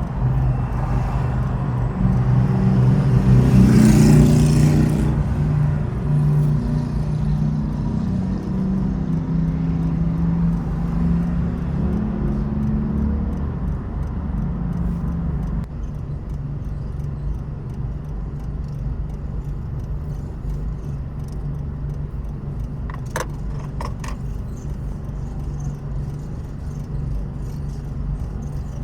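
A car driving: steady engine hum and road rumble. A louder swell of noise comes a few seconds in, and a quick run of sharp clicks comes near the end.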